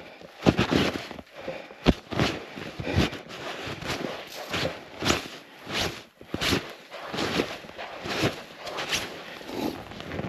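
Footsteps of a person walking in snowshoes through deep snow, one step after another at a steady walking pace.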